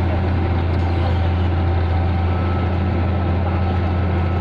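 Diesel engine of heavy road-paving machinery running steadily, a deep even hum with no change in speed.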